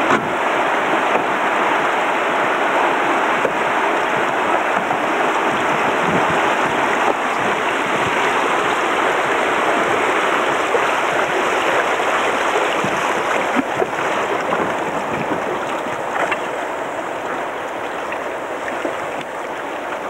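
River water rushing over a shallow, rocky stretch of rapids around a bamboo raft: a steady rush that eases a little in the last few seconds as the water calms.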